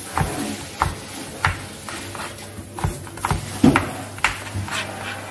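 Crinkle-cutter blade chopping through carrots onto a plastic cutting board. It makes a series of sharp chops, roughly one every half to three-quarters of a second.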